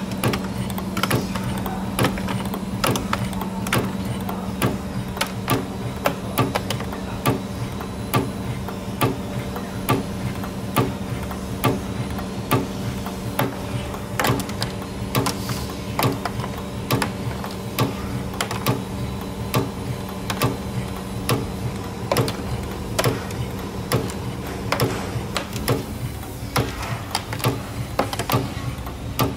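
CNC torsion spring machine coiling 1.5 mm wire into simple torsion springs. It runs with a steady hum under a regular run of sharp clicks, a few a second.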